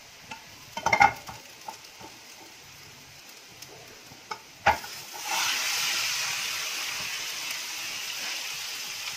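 A plate clatters against a nonstick frying pan a few times about a second in, with a sharp knock about halfway through. Then an egg omelet sizzles loudly in ghee as its raw top side goes down onto the hot pan, the sizzle steady and slowly fading.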